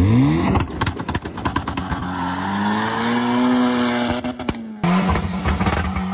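Turbocharged Honda F20B four-cylinder engine in a mid-engine CRX revving up, then a rapid string of sharp pops, then a steady high engine note that rises and falls slightly. Near five seconds it cuts abruptly to another steady engine drone.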